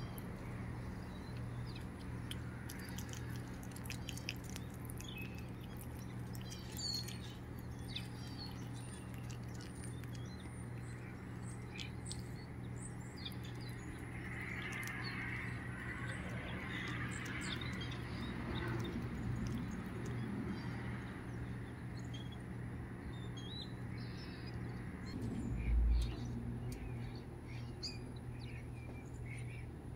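Quiet ambience: a steady low hum with faint scattered clicks and small chirps, and a single dull thump near the end.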